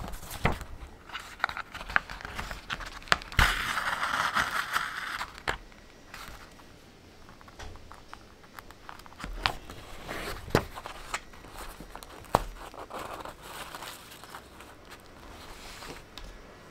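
Hand-sewing a book's signatures: paper pages rustling and sliding under the hands, with scattered light taps and clicks of fingers and needle on the paper and wooden table. About three and a half seconds in, a longer rasping stretch as the thread is drawn through the paper folds.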